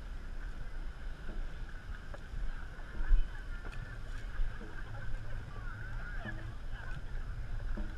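Water washing along the hull of a moving dragon boat, over a steady low rumble, with no single sound standing out.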